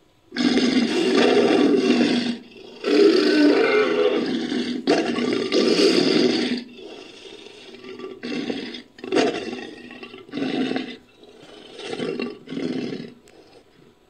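Cave lion sound effect built from lion roar recordings: three long, loud roars in quick succession, then a run of about five shorter, quieter grunting roars.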